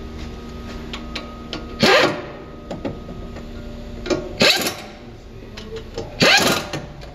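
Air impact wrench firing in three short bursts, running in the bolts that hold a new front wheel hub bearing assembly to the steering knuckle before they are torqued. Small metal clicks between the bursts.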